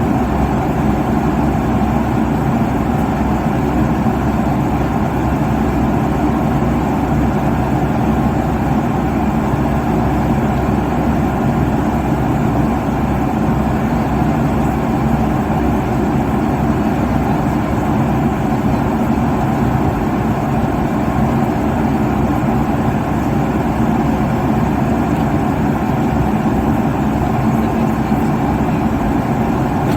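Steady cabin noise of a jet airliner in cruise at about 35,000 feet: a constant low rush of engine and airflow noise, unchanging throughout.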